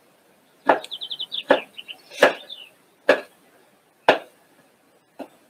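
Kitchen knife chopping vegetables on a cutting board: six sharp strokes, about one a second.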